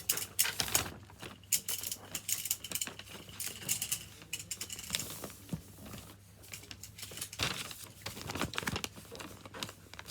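A sheet of paper being handled and folded, with irregular rustles and quick crisp clicks as the folds are pressed and creased.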